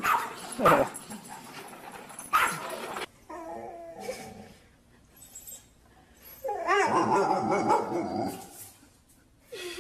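A dog barking in a few sharp calls, then after a pause a drawn-out whining and whimpering with wavering pitch, loudest a little past the middle.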